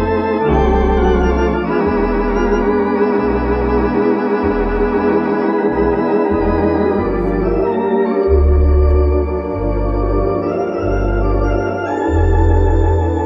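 Rodgers 333 Olympic electronic theatre organ playing sustained chords with a wavering vibrato, over a pedal bass line that changes note every second or two.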